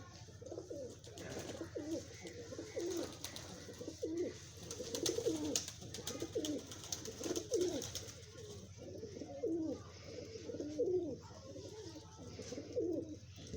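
Pigeons cooing over and over, a string of low coos that rise and fall in pitch, close together.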